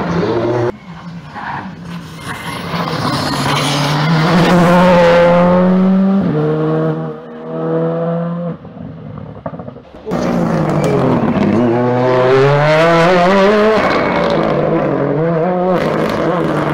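Rally car engines at full throttle. One car's engine climbs in pitch, then steps through several gear changes and fades; about ten seconds in another rally car comes in abruptly, its revs dropping and rising again and again.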